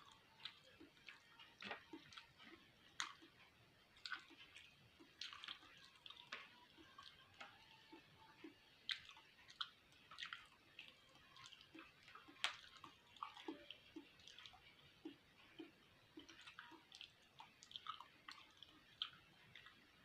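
A person chewing beef fat up close: faint, irregular wet mouth clicks and smacks.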